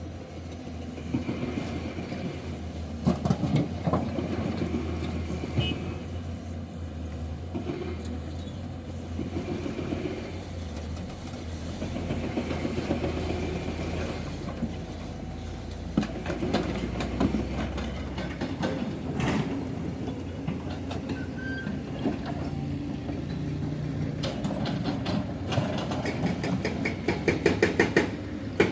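Heavy diesel machinery running steadily with a low hum, with scattered knocks and clatter; near the end a fast, regular pulsing sets in, about three beats a second.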